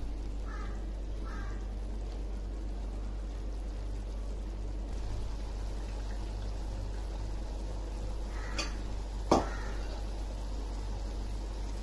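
Mutton gravy simmering and bubbling in a stainless steel pan over a steady low hum, with a sharp click about nine seconds in.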